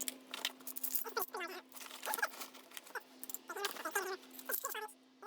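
Tools being packed into a nylon tool bag: a run of short squeaks and scattered clicks as metal tools rub and knock against each other and the fabric.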